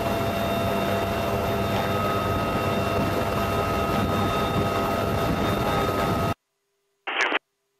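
UH-1Y Huey helicopter's twin turboshaft engines and rotor running on the ground, heard inside the open cabin: a steady rushing noise with a steady turbine whine. It cuts off abruptly about six seconds in, with a brief return of the same noise about a second later.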